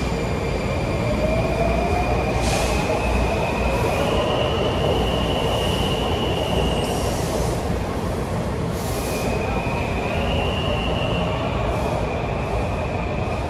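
Washington Metro train pulling out of an underground station: its motor whine rises in pitch over the first few seconds as it picks up speed. Underneath run a steady rumble of wheels on rail and a high wheel squeal that shifts in pitch now and then.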